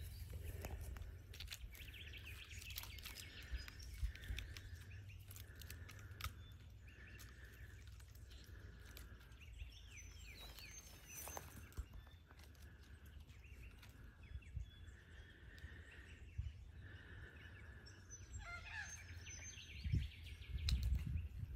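Quiet bush ambience: birds chirping now and then over a faint high note that repeats about once a second, with low wind rumble on the microphone and scattered light scratches.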